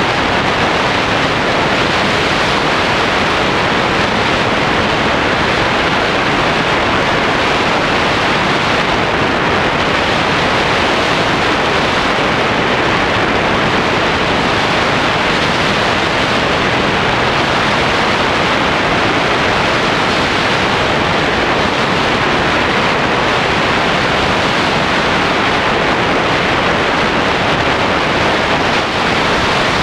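Steady, loud rush of airflow buffeting the microphone of a glider-mounted camera as a tandem hang glider flies. It is an even hiss and rumble with no engine tone in it.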